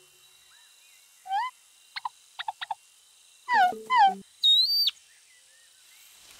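Cartoon bird-call sound effects: a string of short chirps and swooping whistled calls with pauses between them. Two louder calls come about three and a half to four seconds in, followed by a short high whistle.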